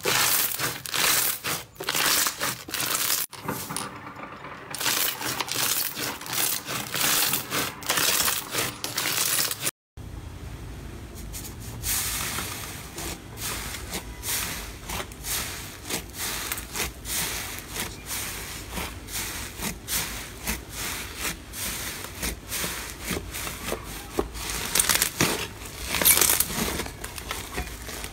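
Hands squeezing crunchy bead-filled slime, giving rapid, loud crackling and popping. After a sudden cut, a soft pale blue slime topped with glitter flakes is pressed and kneaded, with quieter crackling that grows louder again near the end.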